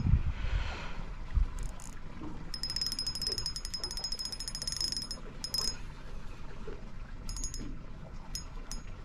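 Fishing reel drag clicking in fast runs as a hooked fish pulls line off: one long run of about two and a half seconds in the middle and several short bursts after it. A dull knock comes about a second and a half in.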